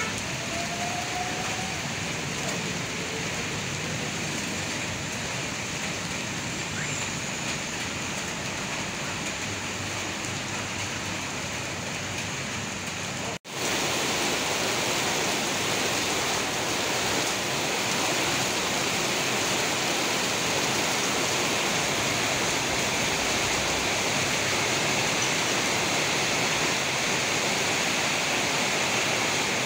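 Heavy tropical rain falling as a steady hiss, with traffic on the wet road underneath in the first part. After a brief cutout about 13 seconds in, the downpour comes back louder and heavier.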